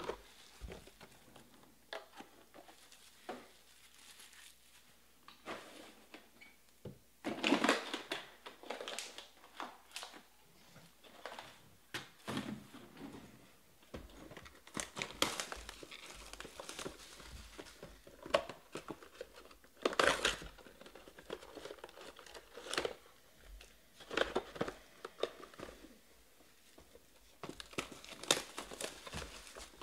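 Shiny plastic wrappers of Panini Prizm Draft football card packs crinkling and tearing as the packs are handled and ripped open, in irregular bursts of rustling with louder crackles here and there.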